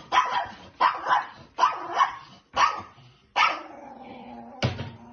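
Small dog barking repeatedly, about six barks spaced under a second apart.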